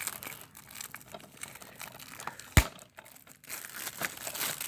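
Plastic shrink wrap crinkling and tearing as it is pulled off a DVD case, with one sharp click about two and a half seconds in.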